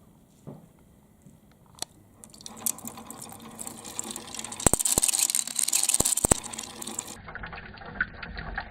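Water running down a marble-run course, starting about two seconds in and swelling, with balls clicking sharply against the track. Near the end it gives way suddenly to a quicker clatter of balls rolling along the run.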